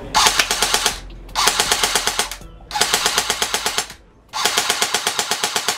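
A&K SVD-S airsoft electric rifle (AEG) firing four full-automatic bursts of about a second each, the motor-driven gearbox cycling in a rapid, even rattle of shots.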